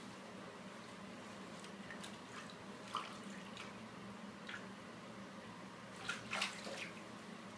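Bathwater sloshing and dripping as a dog is washed by hand in a bathtub: a few soft splashes about three seconds in, then a louder cluster of splashes a little after six seconds, over a faint low hum.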